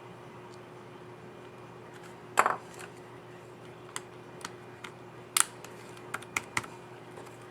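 Scissor-switch keys on an Asus ROG Zephyrus G14 laptop keyboard clicking under irregular presses. There is a loud click about two and a half seconds in, another near the middle, and lighter clicks scattered between and after them.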